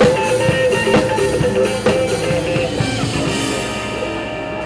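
Live rock band playing: drum kit hits about once a second under sustained guitar and keyboard-like chords, dying away near the end.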